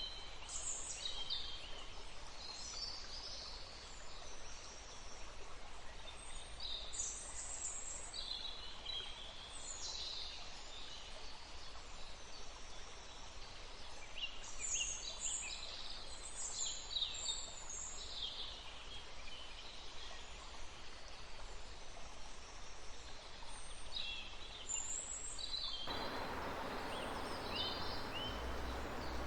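Forest birds chirping and calling in short, scattered phrases over the steady rush of running water. About 26 seconds in, the water rush abruptly becomes louder.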